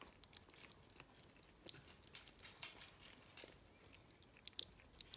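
Faint, irregular wet smacking and licking clicks of three-week-old Jack Russell puppies lapping yoghurt from a finger.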